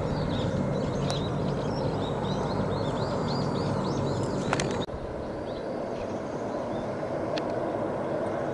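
Steady distant drone of a large military hovercraft's engines and propellers, with a small bird chirping in quick repeated notes over it during the first half. About five seconds in, the sound cuts abruptly to a slightly different steady drone.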